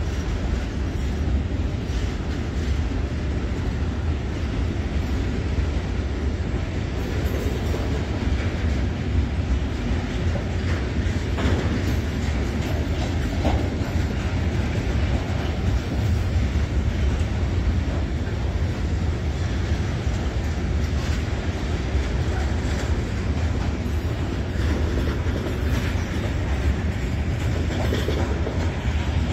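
Freight train of covered box wagons rolling past: a steady rumble of wheels on rails, with faint clicks as the wheels cross rail joints.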